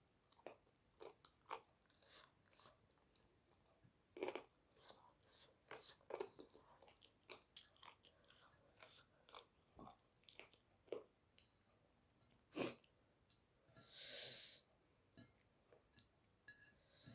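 Quiet chewing of food: scattered soft mouth clicks and smacks, with a short breath about fourteen seconds in.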